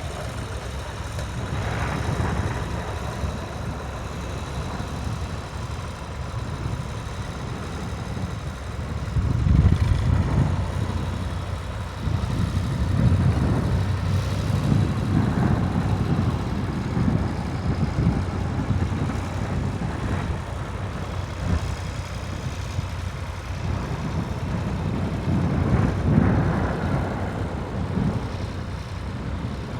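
Tractor engines running in a field, a steady low rumble that swells louder twice.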